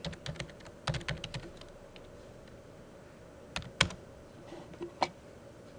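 Typing on a computer keyboard: a quick run of keystrokes over the first second and a half, then a few louder single clicks later on.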